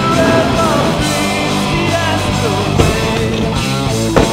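Rock music soundtrack with guitar and a singing voice.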